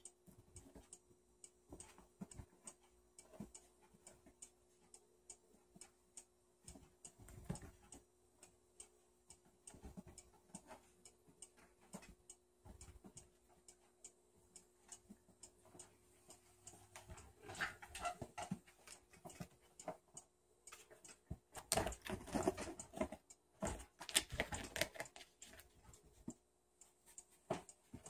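A groundhog scratching and pawing at a towel on an upholstered chair: irregular light clicks and scratches, with two louder spells of rustling in the second half.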